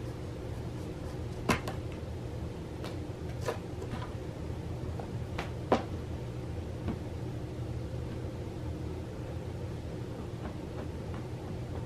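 Steady low indoor hum with a few scattered sharp clicks or taps, the loudest about a second and a half in and again near six seconds in.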